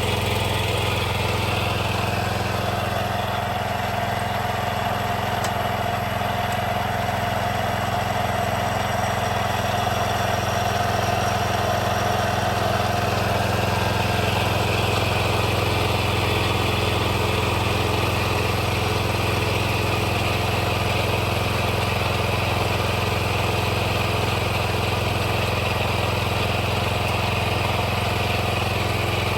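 Kawasaki engine of a Scag 36-inch walk-behind mower running steadily.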